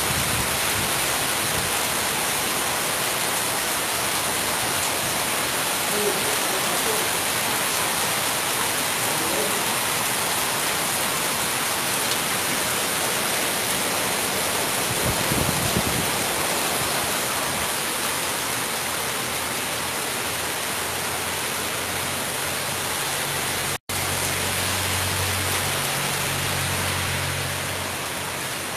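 Heavy downpour: a steady, loud hiss of rain pouring onto a road and pavement that are running with water. The sound cuts out for an instant near the end.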